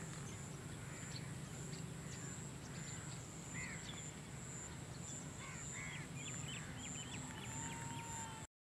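Outdoor field ambience: birds chirping and calling here and there over a steady high-pitched hum and a low rumble. It cuts off suddenly near the end.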